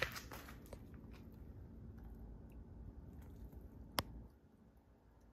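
Faint low rumble with a few soft ticks and one sharp click about four seconds in, after which the rumble drops away.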